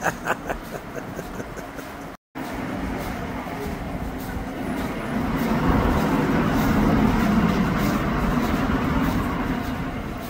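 Street noise with a road vehicle passing: a broad rumbling hiss that swells about halfway through and fades near the end.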